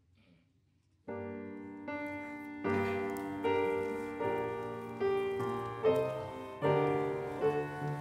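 Grand piano starting about a second in, playing slow chords struck a little under once a second, each left to ring. It is the piano introduction to a hymn, with no singing yet.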